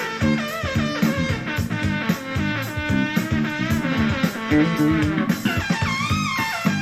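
Rock song in a guitar-led passage, with bass and drums under a bending lead guitar line, played over ONKYO D-66RX bookshelf speakers driven by a Pioneer SX-45 receiver and picked up by a recorder in the room.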